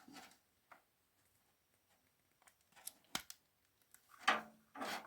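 A few light clicks and rubs of a plastic SATA cable connector being lined up and pushed onto an SSD's port. There is one sharp click about three seconds in and a louder knock about a second later.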